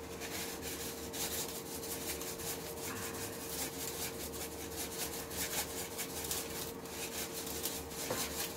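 Salt shaken from a plastic shaker onto raw steaks in a plastic container: a steady, scratchy patter of grains. A faint steady hum sits underneath.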